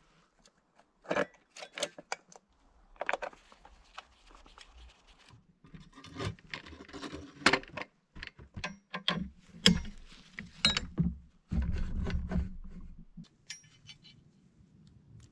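Chainsaw chain and Alaskan chainsaw mill parts being handled: scattered metal clicks, rattles and scrapes, with a longer low scraping rumble a little before the end.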